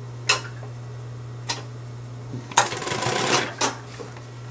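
Consew 225 industrial walking-foot sewing machine running a short burst of stitches, a little under a second long, about two and a half seconds in. A few sharp clicks come before and after it, over a steady low hum.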